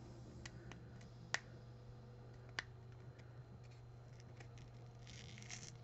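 Faint clicks and crackles of a Topps Rip baseball card being peeled apart by hand, with a brief rustle about five seconds in.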